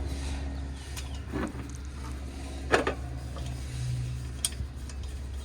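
A few sharp metal clicks and knocks as a new condenser fan motor and its mounting hardware are handled and fitted, over a steady low hum. A brief low whine comes about two-thirds of the way in.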